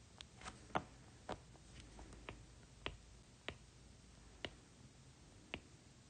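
A stylus tip tapping on a tablet's glass screen: about ten sharp, irregular clicks, the loudest about three-quarters of a second in.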